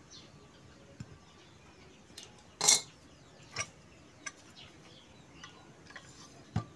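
Scattered clinks and knocks of a spin dryer motor's stator and housing being handled and lifted, the loudest about two and a half seconds in.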